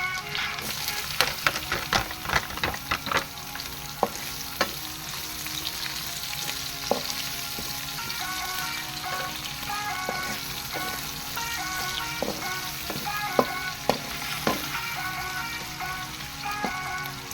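Food sizzling in a frying pan while a utensil stirs it, scraping and knocking against the pan. The sizzle swells a little under a second in, and the knocks come thickest in the first few seconds.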